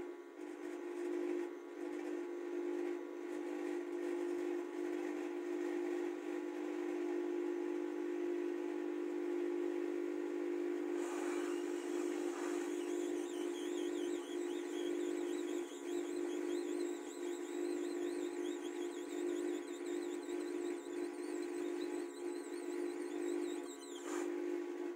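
Hot-air rework station blowing steadily while the replacement MT6358W power-management IC is fitted, a constant hum with a wavering high whistle joining partway through.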